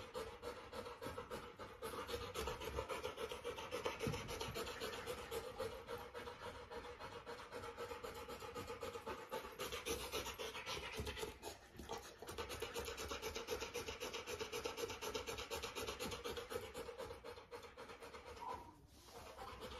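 Rottweiler puppy panting fast and steadily, faint, with light scratching and rubbing against it; the panting stops briefly twice.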